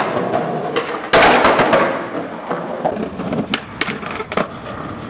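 Skateboard wheels rolling on concrete with sharp clacks of the board hitting the ground. The loudest clack comes about a second in and a few more follow later.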